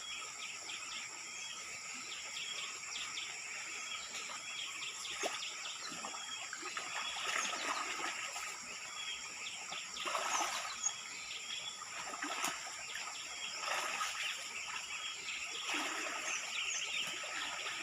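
Forest ambience: many short bird chirps over a steady high insect drone, with water trickling and a few brief rustles.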